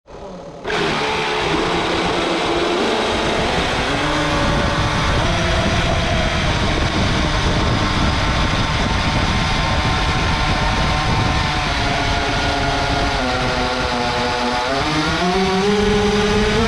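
Lestro Arrow RC boat's motor running, heard close up on board over the loud rush of water and wind. The motor's pitch shifts up and down with the throttle and climbs near the end.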